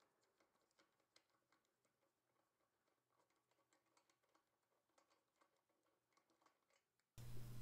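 Near silence, with a low steady hum coming in near the end.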